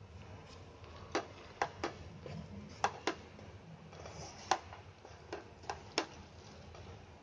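A stirring spoon knocking against the kadhai in about nine sharp, irregular clicks as rice flour is stirred into a boiling water mixture.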